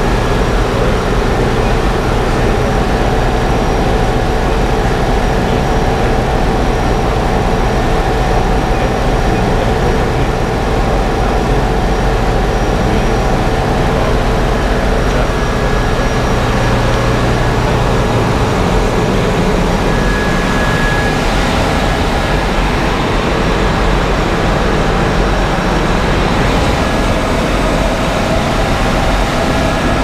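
Steady drone of running machinery in a ship's machinery room: a constant low hum with a few faint, steady whining tones above it.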